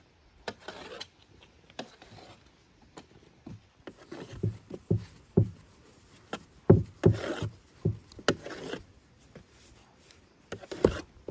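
Knife cutting soft bread dough into portions on a floured metal tray: scraping and rubbing, with a string of sharp knocks and dull thumps as the blade and the dough pieces meet the tray, busiest in the middle and again near the end.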